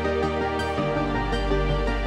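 Instrumental background music with held notes over a sustained bass line; the bass drops to a lower note a little under a second in.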